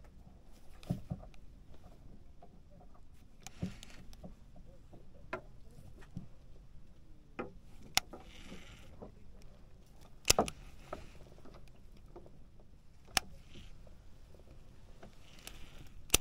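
Irregular sharp knocks and clicks on a small fishing boat, about eight spread across the stretch, with a couple of brief hissy rustles or splashes between them.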